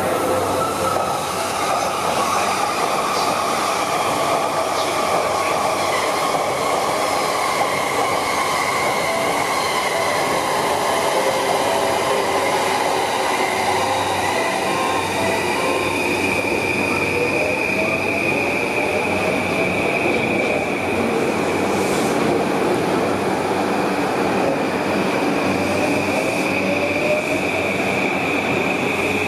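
Electric trains running at a station platform, wheels rumbling on the rails. A motor whine slides down in pitch in the first half and other whines rise later on. From about halfway a high, steady wheel squeal joins in.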